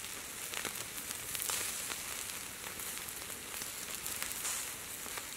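Sausages sizzling over glowing campfire embers: a steady hiss with scattered small pops and crackles.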